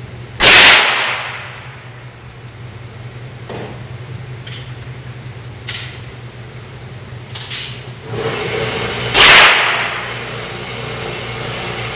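Two rifle shots from a Smith & Wesson M&P15-series AR-style rifle, about half a second in and about nine seconds in, each echoing briefly off the concrete of an indoor range. Lighter clicks fall between them, over a steady low hum.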